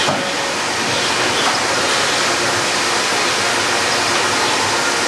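Steady, loud, unbroken din of sawmill machinery running, with no separate strokes or impacts standing out.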